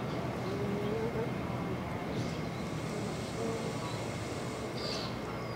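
Steady background noise with faint, distant voices, and brief faint high chirps about two seconds in and again near the end.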